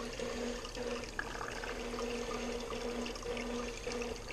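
Aquarium water pouring and trickling steadily, with a faint low hum underneath.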